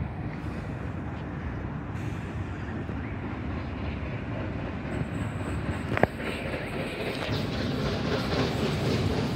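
Approaching steam locomotive 3265 rumbling along the rails, growing louder over the last few seconds, with one sharp click about six seconds in.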